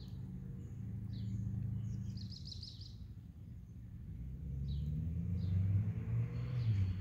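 Outdoor ambience: a low, steady rumble with a humming, engine-like tone that grows louder in the second half. Over it, small birds give a few short, high chirps and one quick trill a little over two seconds in.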